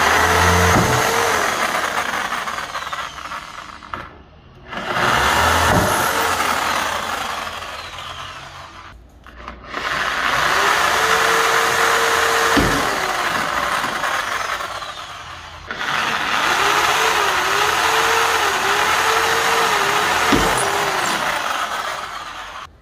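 Corded electric hand drill boring into wood in four runs of several seconds each, its motor winding down briefly between them. In the last run the motor's pitch dips and recovers several times.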